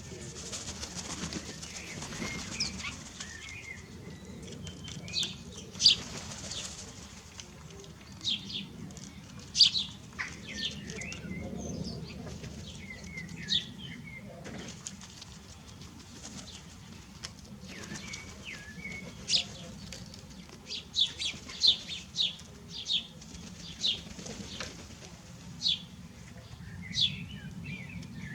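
Birds chirping in many short, sharp calls, with flurries of flapping wings as birds take off and land.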